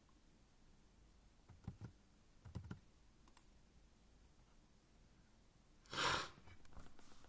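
Faint, scattered clicks of a computer mouse and keyboard at a desk, a few single taps spread over the first half, then one louder short burst of noise about six seconds in.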